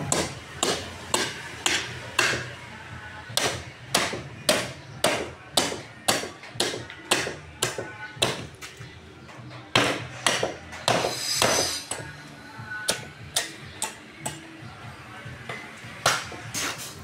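Cleaver chopping through pork ribs and bones on a wooden board, a sharp strike about every half second, with a brief scraping sound about eleven seconds in.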